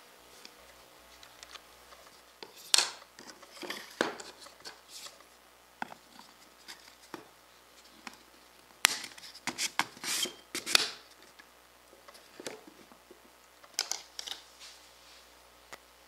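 Scattered clicks, taps and scrapes as a laser-cut gear and a PVC pipe shaft are handled and fitted together in an acrylic jig on a wooden tabletop, with a busier run of sharp clicks about halfway through.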